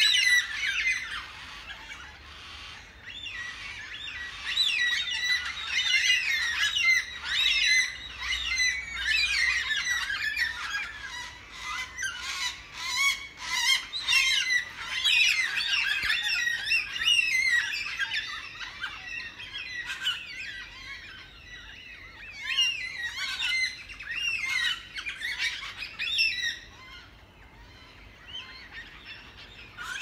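A flock of parrots calling, many overlapping calls at once, densest through the middle and thinning out near the end.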